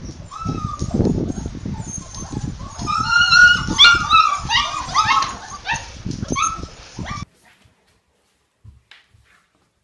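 A litter of Bernese Mountain Dog puppies yipping and whimpering: many short, high-pitched cries crowding together from about three seconds in, over a low rumble of noise. The sound cuts off abruptly about seven seconds in, leaving near silence.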